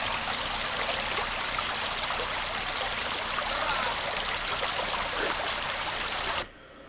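Steady rush of running water, which cuts off suddenly near the end.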